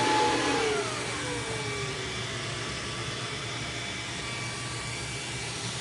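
Antminer S9 bitcoin miner's cooling fans on start-up. They run at full speed, then about a second in a whine falls steadily in pitch and the noise drops as the fans slow, settling into a steady rush of air.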